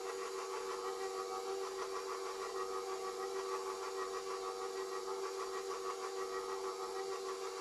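KitchenAid bowl-lift stand mixer running on its lowest speed, its motor and gears driving the spiralizer attachment through a zucchini; a steady hum.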